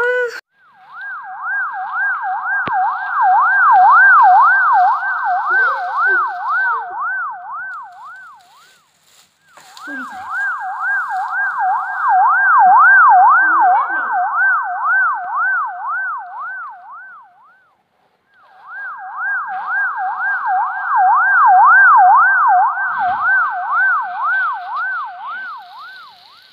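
Ambulance siren sound effect: a fast wail sweeping up and down about twice a second. It comes in three passes, each swelling up and then fading away.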